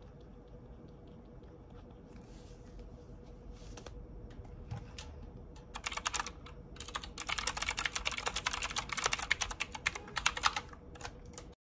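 Rapid typing on a computer keyboard, starting about six seconds in over quiet room noise with a faint steady hum, and cutting off suddenly near the end.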